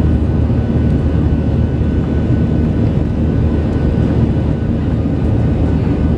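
Steady engine and airflow noise of a Boeing 737 heard inside the passenger cabin during the climb after takeoff. The noise is loud and even and mostly low, with a faint steady whine above it.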